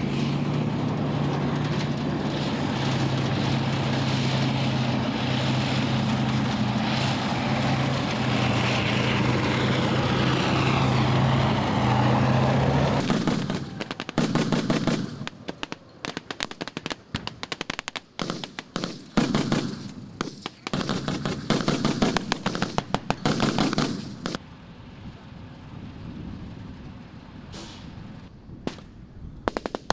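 A tank's engine runs at a steady drone as it drives, for roughly the first thirteen seconds. Then, at an abrupt change, bursts of automatic weapons fire follow: rapid strings of shots with short gaps between them, thinning to a few scattered shots near the end.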